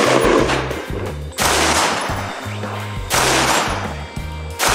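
Aero Precision M16A4-style 20-inch AR-15 rifle fired semi-automatically at a steady pace, a shot about every second and a half, each crack ringing out for a moment. Background music with a bass line plays underneath.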